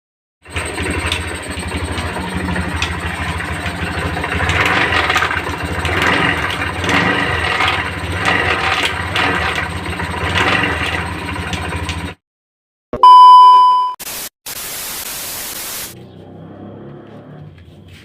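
Honda Beat automatic scooter running with a harsh grinding noise from its CVT, like a stone grinder. The noise cuts off suddenly about twelve seconds in. A loud beep tone follows, then a short burst of static hiss.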